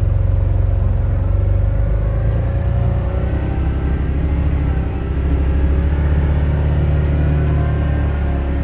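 Off-road vehicle's engine running under load with a steady low rumble, its pitch shifting slowly up and down as it is driven.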